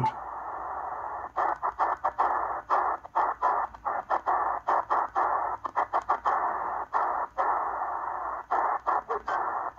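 Eton Grundig Satellit Executive shortwave receiver tuned in lower sideband across the bottom of the 40 m ham band: a steady, muffled band noise hiss from its speaker. From about a second in, the hiss cuts out briefly many times at uneven intervals as the tuning knob steps the frequency.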